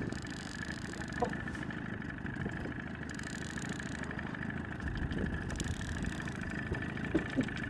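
Outboard boat motor running steadily at trolling speed, with a constant drone and a thin steady whine.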